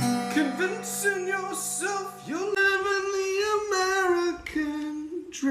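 A voice singing a melody over a held instrumental chord, which stops about two and a half seconds in while the singing carries on.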